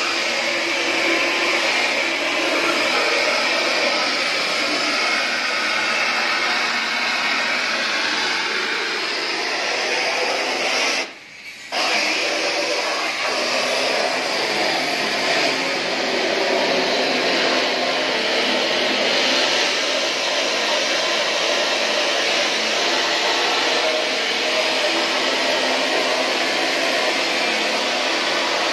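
Steady hiss of a high-pressure water spray gun jetting onto a screen-printing mesh frame in a wash booth. The noise cuts out briefly about eleven seconds in, then resumes.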